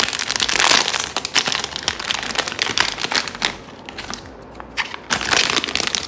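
Plastic packaging crinkling and rustling as a blind-box vinyl figure and its small accessory parts are unwrapped by hand. The crinkling eases off for a second or two past the middle, then starts again.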